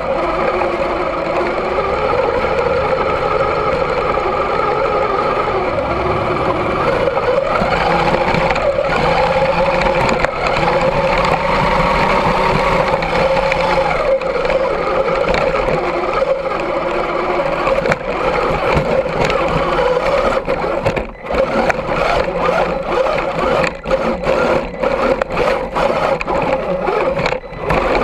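Axial SCX10 II RC crawler's electric motor and geared drivetrain whining steadily, heard from a camera mounted on the truck, its pitch rising and falling with the throttle. In the last several seconds the whine cuts in and out in short spurts as the throttle is blipped.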